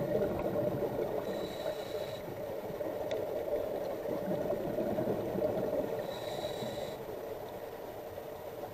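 Scuba diver breathing through a regulator underwater: two inhalations with a thin, high hiss about five seconds apart, and bubbling exhaled air between.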